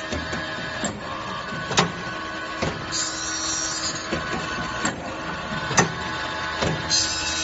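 Automatic saw-blade tooth grinding machine running with a steady motor hum and a sharp click about every second. Bursts of high grinding hiss come about three seconds in and again near the end.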